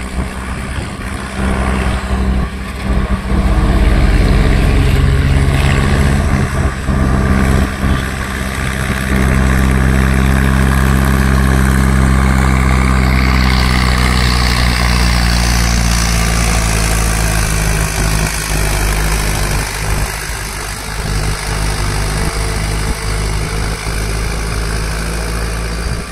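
Mahindra Arjun 555 tractor's diesel engine running steadily under load as it pulls a loaded trailer uphill. It grows louder as it comes close and passes, then fades a little as it moves away in the last third.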